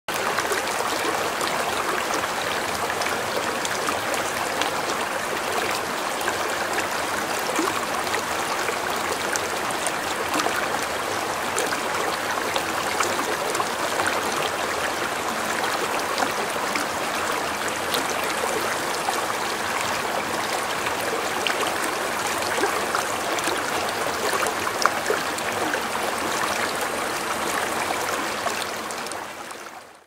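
Shallow stream rushing and splashing around boulders in a small rocky cascade, a steady sound of running water that fades out near the end.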